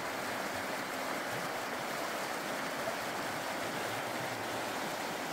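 Steady rush of flowing river water, an even hiss with no change in level, starting and stopping abruptly at edits.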